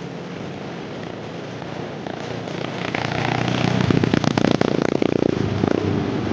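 A small engine going by close, its rapid popping building to its loudest in the middle and easing off near the end.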